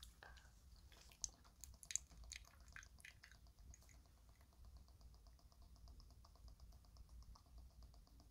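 Faint clicks and taps of a plastic toy mini water dispenser being handled, then faint, rapid, even ticking of drink dripping from the leaking dispenser.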